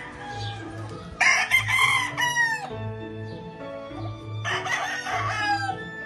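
Roosters crowing: a loud crow about a second in, ending in a falling glide, then a second, fainter crow a few seconds later. Background music with a steady beat runs underneath.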